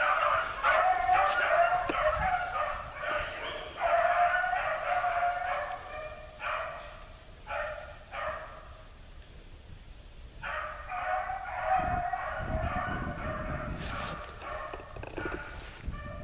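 Beagles baying on a rabbit's scent line: several hound voices in bouts of a few seconds with short breaks, easing off for about two seconds near the middle before taking up again.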